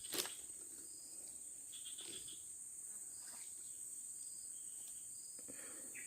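Crickets or similar insects chirring steadily in one high-pitched, unbroken tone, with a single sharp click about a quarter second in.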